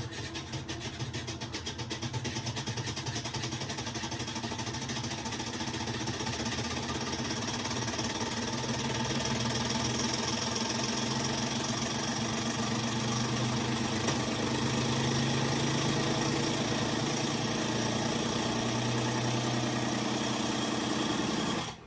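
Kenmore top-load washer running with a loud mechanical noise that builds over the first several seconds, holds steady, then cuts off suddenly near the end. The noise is the sign of a worn clutch in the drive.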